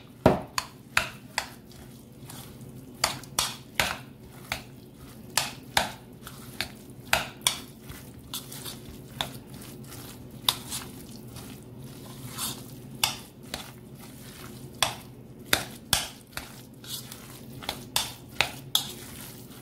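Metal fork stirring and mashing a chickpea salad in a bowl, clinking and scraping against the bowl's side irregularly, one to three clinks a second, over a steady low hum.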